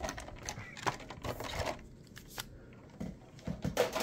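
Crinkling and rustling of foil booster-pack wrappers and card packaging being handled, with scattered light clicks and taps.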